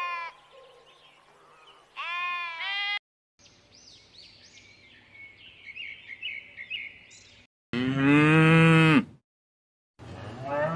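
Sheep bleating twice, then a stretch of faint high chirping calls, then cattle mooing twice: a loud long moo and another near the end.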